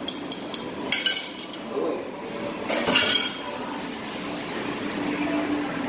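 Bowl, utensil and frying pan clinking and knocking together as beaten eggs are poured into the pan on a gas hob. A quick run of small clinks comes near the start, a louder knock about a second in and the loudest clatter about three seconds in.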